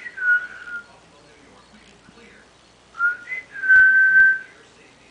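Chow-mix puppy whining: thin, high, steady-pitched whimpers in two bouts, the second ending in a longer whine of about a second.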